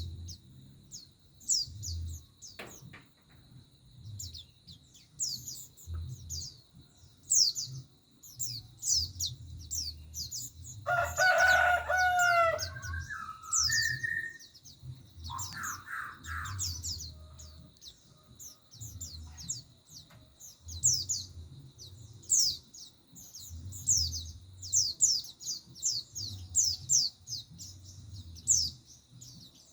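Pleci (white-eye) giving rapid, short, high chirps over and over, with a rooster crowing once about eleven seconds in.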